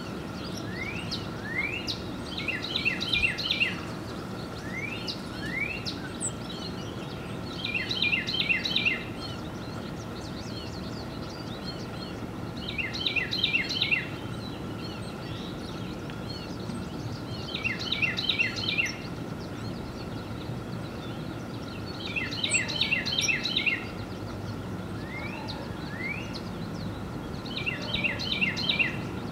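Carolina wren singing its rolling song of quickly repeated phrases, about once every five seconds, with a few single rising whistled notes of a northern cardinal between songs. Underneath is a steady low background rumble with a faint steady hum.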